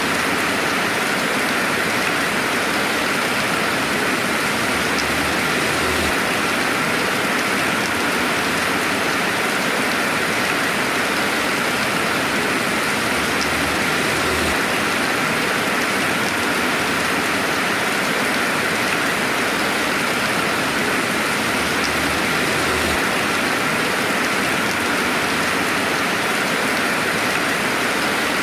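Steady, dense rainfall hiss with no thunder, an even wash of noise with faint scattered drop ticks.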